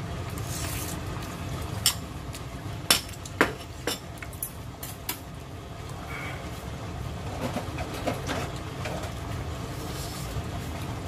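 Kitchenware clinking: a bowl and a metal ladle knock against each other or the pot about half a dozen times in quick succession, over a steady low hum.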